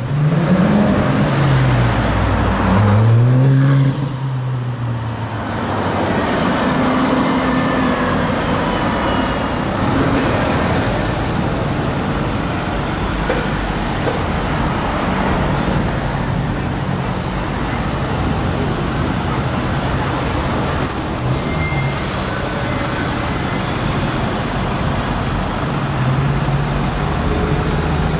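Engines running in slow, dense city traffic, with one engine revving up and down twice in the first few seconds before the sound settles into a steady traffic din.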